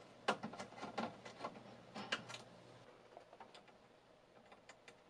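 Small clicks and scrapes of a socketed DIP RAM chip being pried out of a computer motherboard and a replacement chip pressed in by hand: a quick cluster of clicks in the first two and a half seconds, then a few faint ticks near the end.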